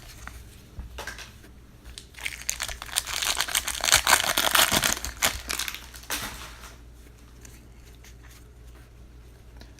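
Foil wrapper of a trading-card pack being torn open and crinkled: a dense crackling starts about two seconds in and lasts about four seconds.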